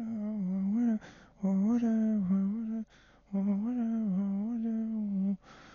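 A person humming a tune in three phrases, with short breaths between them.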